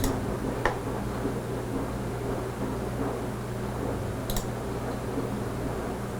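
Steady hum of a running desktop PC's cooling fans, with a few short clicks.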